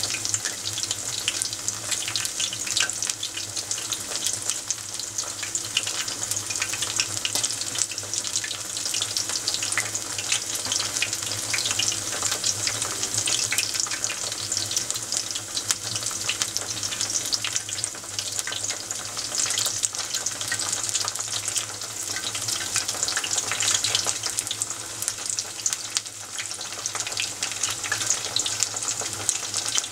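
Vegetable tempura (battered eggplant and green shoots) deep-frying in a pot of oil, giving a steady, dense crackling sizzle.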